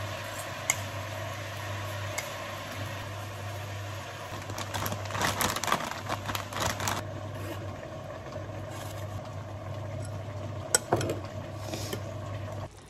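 Steady low mechanical hum of a kitchen appliance. About five to seven seconds in, rustling and crackling as red chilli powder is poured from a plastic packet into a glass bowl, and a single sharp tap near eleven seconds.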